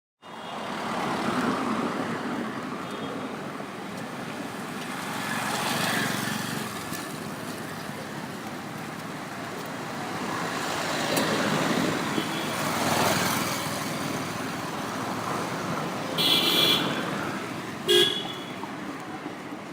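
Road traffic ambience: vehicles passing in slow swells of tyre and engine noise, then two vehicle horn honks near the end, a longer one followed a second or so later by a short toot.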